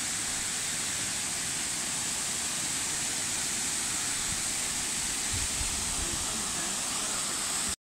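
Steady, even rush of a tall waterfall pouring down a rock face. The sound cuts out for an instant near the end.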